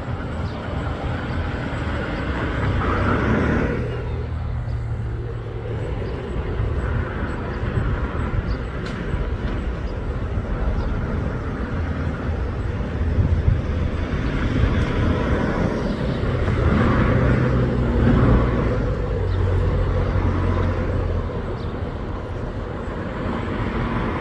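Road traffic: motor vehicles passing with a steady low rumble, two passes louder than the rest, a few seconds in and about two-thirds of the way through.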